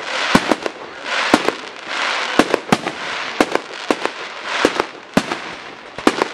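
Aerial fireworks going off: about a dozen sharp bangs from bursting shells, roughly two a second at uneven intervals, with crackling hiss from glittering effects between them.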